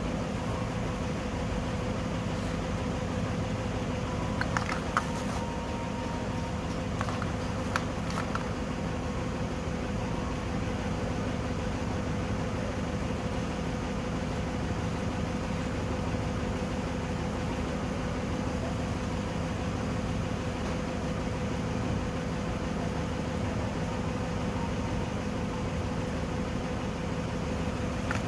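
A steady mechanical hum at an even pitch, with a few light clicks about four and eight seconds in.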